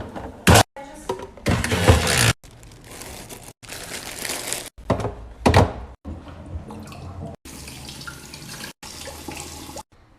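Quick-cut kitchen handling sounds from restocking a fridge: items and containers knocked and set down, with a sharp knock about half a second in and another about five and a half seconds in. Stretches of rushing noise like running or pouring water come in between.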